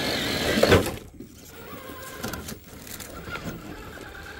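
Electric motor and gear whine of a Traxxas TRX-4 scale RC crawler creeping over boulders, a faint steady whine with a few small clicks. A louder rush of noise fills about the first second.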